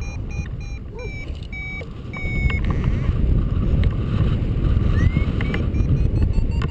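Wind rushing over the microphone in flight, with a paragliding variometer sounding quick high beeps. The beeps stop for a couple of seconds midway and come back with a rising tone about five seconds in. These are the climb beeps that signal rising air.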